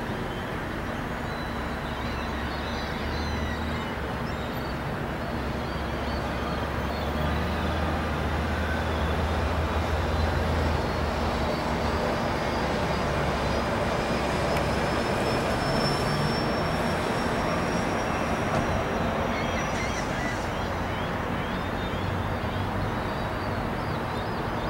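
Distant aircraft drone: a steady low rumble under outdoor noise, with a faint high whine that rises slowly in the middle.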